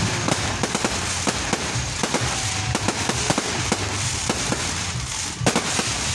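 Aerial fireworks display: a rapid, continuous string of bangs and crackles from bursting shells, with a heavier cluster of bangs about five and a half seconds in.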